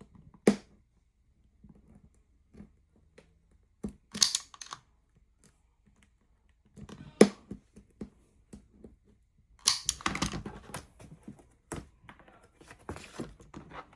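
Irregular sharp clicks and short rustling, scraping bursts from hands working with craft materials (paper print, plastic board, scissors, tape), in a few clusters with quiet gaps between.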